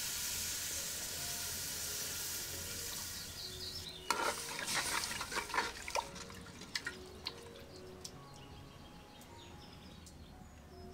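Water poured in a steady stream from a terracotta jug into a clay pot of curry, splashing for about three seconds. Then a wooden spoon stirs the curry, knocking against the clay pot for a few seconds.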